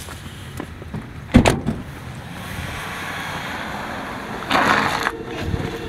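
A car door slams shut about a second and a half in. Then a car's engine grows louder as it drives up, with a short loud rush of noise near the end as it pulls in and stops.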